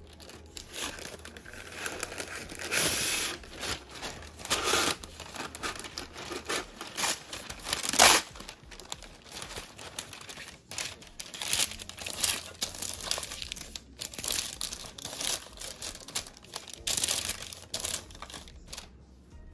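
Parchment paper crinkling and rustling in irregular bursts as hands fold and press it into a glass baking dish, with the sharpest crackle about eight seconds in.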